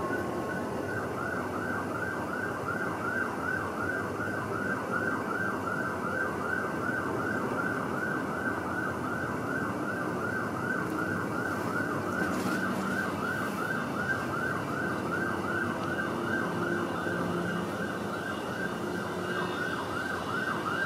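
A siren-like tone sweeping up and down in quick, even whoops about twice a second, over a steady low rumble.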